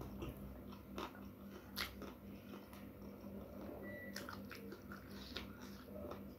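Close-up mouth sounds of chewing a crunchy mouthful of raw green eggplant with rice and sambal, with a run of sharp crunches and wet clicks over a faint steady hum.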